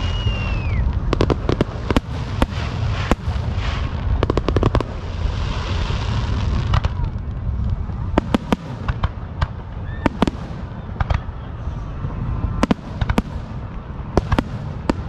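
Fireworks going off: a fast, irregular string of sharp bangs and cracks. A high whistle glides down and ends under a second in, and a dense crackle follows around five to six seconds in, all over a steady low rumble.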